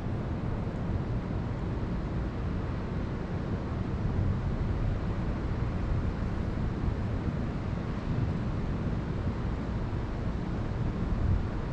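Wind buffeting the microphone: a steady low rumble with a hiss above it.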